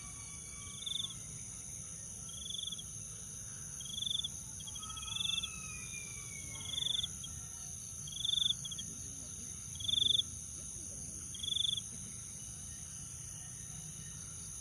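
Night insects, crickets, keeping up a steady high drone, with a short pulsed chirp repeating about every second and a half, growing louder and then stopping about twelve seconds in. Faint falling whistle-like tones slide down twice.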